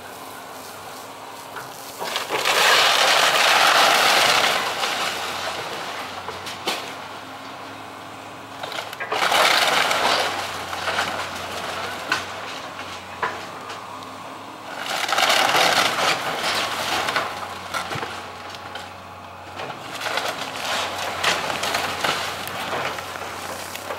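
Hydraulic excavator demolishing a wood-framed building's shingle roof: wood and roofing crunch, crack and break in three long loud surges, with sharper single cracks between them and a rougher stretch near the end. A steady low hum from the excavator's engine runs underneath.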